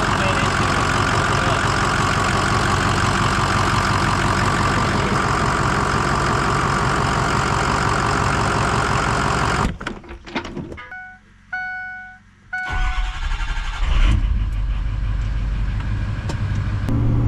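Ford F250's 6.0 Power Stroke V8 diesel running on a test of the newly replaced 5R110W automatic transmission. About ten seconds in the sound drops away for about three seconds, with a few short beeps, then the low diesel rumble comes back.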